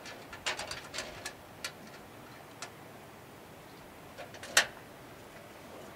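Light clicks and taps of hard plastic deer-feeder parts and small screws and washers being handled and fitted together, a cluster of them at first, then a few scattered ones, with one sharper click about four and a half seconds in.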